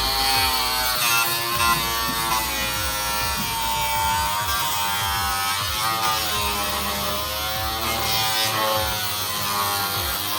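A handheld electric power tool's motor buzzing steadily, its pitch wandering up and down as the load on it changes.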